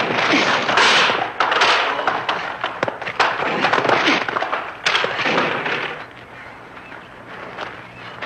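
Film fight-scene sound of a man knocked into a row of folding chairs: chairs crashing and clattering with a string of sharp knocks, dying down after about five to six seconds to a low steady hum.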